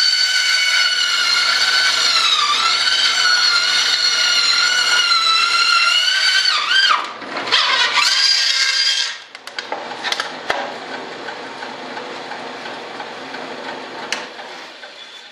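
Bandsaw with a thin blade cutting a large sheet: a loud, high whistling tone that wavers and dips in pitch as the piece is fed through. About nine seconds in the cut ends and the saw runs on more quietly.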